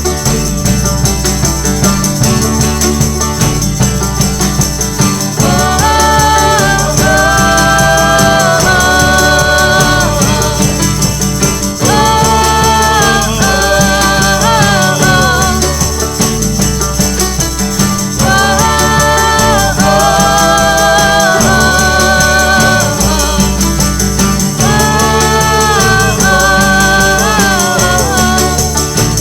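A band playing a passage without lyrics: a repeating bass line under a melody that comes in phrases about every six seconds, with a shaker or tambourine keeping time.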